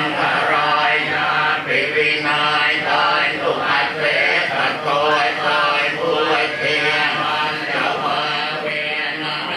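Thai Buddhist monks chanting Pali verses in unison: a continuous, steady group recitation of low male voices.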